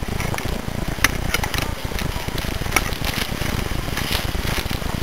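Rough, crackling rumble of handling and movement noise on a gun- or helmet-mounted camera microphone, with a few sharp clicks, about a second in and again near three seconds.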